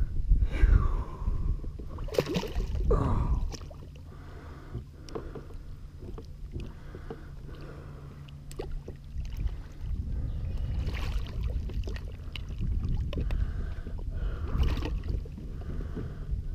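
Water sloshing and splashing against the side of a kayak as a large redfish is held in the water on a lip grip and released, with a few short splashes. It is louder in the first three seconds and again from about ten seconds on.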